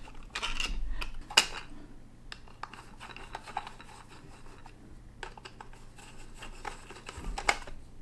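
Screwdriver driving screws through a plastic switch back plate into the wall box: scattered small clicks and scrapes, with one sharper click about one and a half seconds in.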